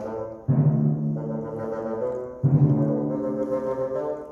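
Live chamber music for bassoon, timpani and violin. Two loud low entries come about half a second in and near two and a half seconds, and each is held.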